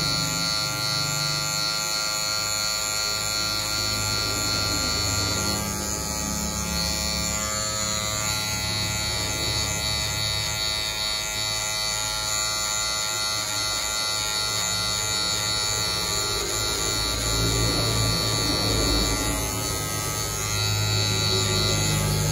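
Electric hair clippers running with a steady buzz while cutting a fade.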